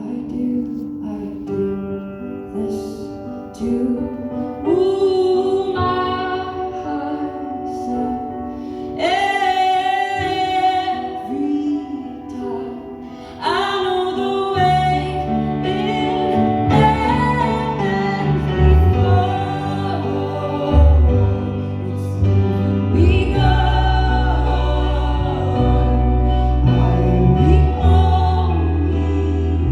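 A live song: a woman singing a slow melody over instrumental accompaniment. A low bass part comes in strongly about halfway through.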